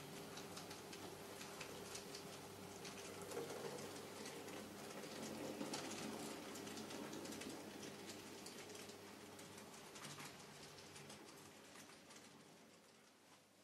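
N-scale model train, a class 65 steam tank locomotive hauling passenger coaches, running across the layout: a faint steady motor hum with a dense patter of small clicks from the wheels on the track. It grows louder in the middle and fades toward the end as the train passes. The freshly serviced locomotive runs quietly and smoothly.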